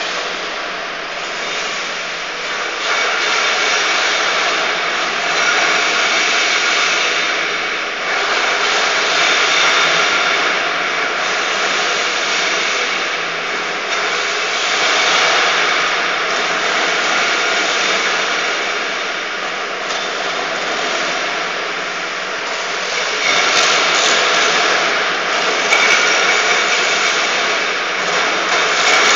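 HS 5000 light floor grinding machine running steadily, sanding down an epoxy floor coating before the topcoat. The noise is loud and even, with a faint steady whine and slow swells and dips in loudness every few seconds.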